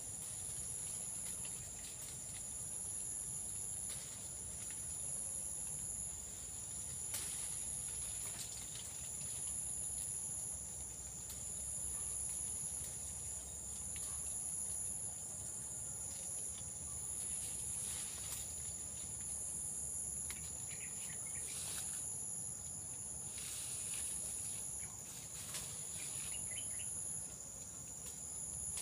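A steady, high-pitched insect chorus with two shrill drones, the higher one pulsing on and off. Now and then there are short rustles and snaps of leaves and twigs as rambutan fruit clusters are pulled from the tree.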